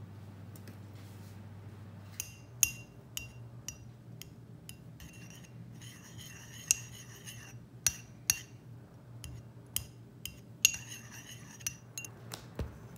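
Metal teaspoon clinking and scraping against a ceramic ramekin while stirring apricot jam with hot water. Sharp, ringing clinks start about two seconds in, with denser stretches of scraping and clinking around the middle and again near the end.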